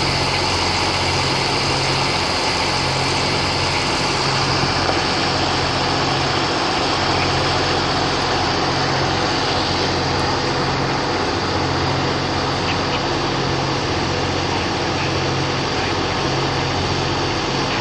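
Steady, unchanging drone of a running engine with a low hum that fades in and out.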